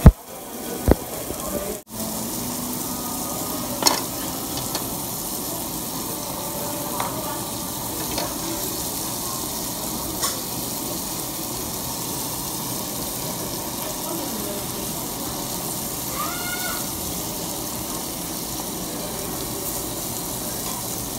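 Meat sizzling steadily on a hot barbecue grill, with a few light clicks and knocks now and then.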